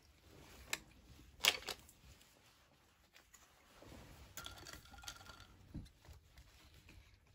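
Light tableware handling: sharp clicks of a plastic spoon on a plastic tray, with a loud cluster of clicks about one and a half seconds in. Scattered taps follow as a glass of iced drink is picked up.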